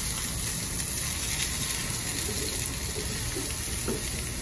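Slices of eggplant sizzling steadily in hot oil in a skillet.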